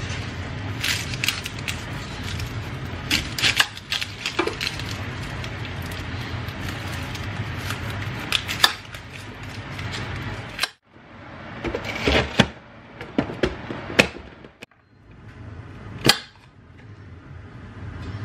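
Kitchen knife cutting through an onion and tapping on a chopping board: scattered sharp clicks and taps. Underneath runs a steady low hum from the washing machine and tumble dryer, which drops out briefly twice past the middle.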